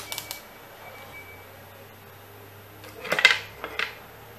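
A few light clicks at the start, then the hollow plastic housing half of a cordless screwdriver clattering and knocking as it is turned over onto a wooden board, about three seconds in.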